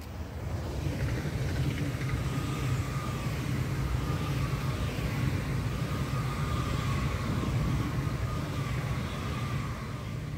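ICE 4 high-speed electric train passing at speed: a rush of wheel and air noise that builds over the first second as it arrives and holds while the long train goes by, with a faint whine slowly falling in pitch.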